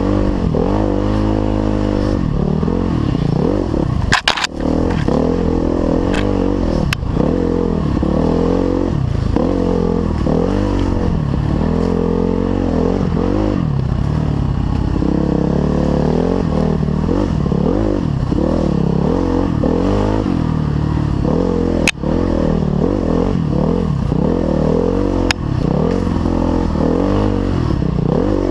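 Dirt bike engine running under the rider, its pitch rising and falling every second or so as the throttle is worked along a bumpy sand trail. A few sharp knocks cut in, about four seconds in, near seven seconds, and twice in the last third.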